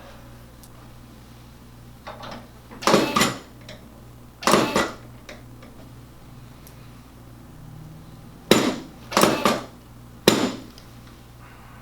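Chiropractic table drop pieces clacking down under adjusting thrusts: five loud, sharp clacks in two groups, with a smaller knock just before the first.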